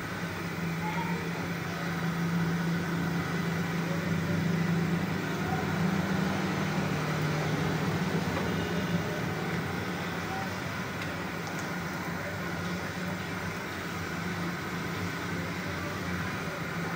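Steady low hum and rushing noise of a gas stove burner heating a wide pan of salted water toward the boil, a little louder from about two seconds in.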